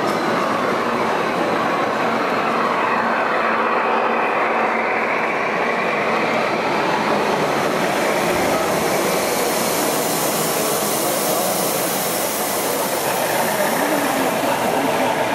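Gauge 1 (1:32 scale) model passenger train running past on the layout's track, a steady rolling rail noise with some clickety-clack from the wheels. The sound turns brighter and hissier from about halfway through, as the coaches pass close.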